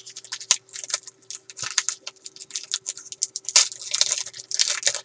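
Topps Chrome trading cards being handled and shuffled: a rapid patter of light clicks, flicks and rustles, busiest near the end.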